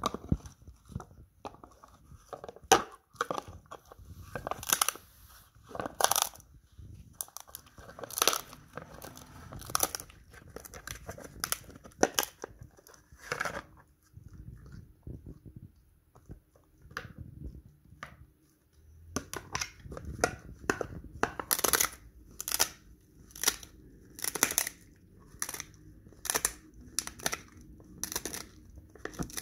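Border Collie chewing a dried pig ear, the stiff treat crunching and tearing in its teeth. Irregular sharp crunches give way to quieter gnawing around the middle, then regular crunches a little over one a second.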